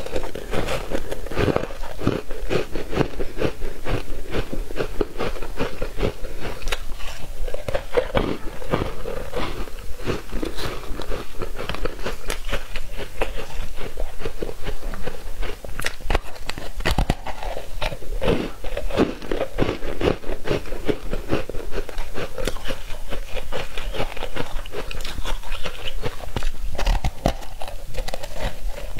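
Foam ice being bitten and chewed: dense, continuous crunching and crackling as the airy ice breaks up in the mouth.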